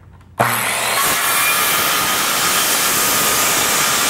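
Corded circular saw starting about half a second in and cutting straight through a bead board wainscoting panel: a loud, steady cutting noise with a high motor whine.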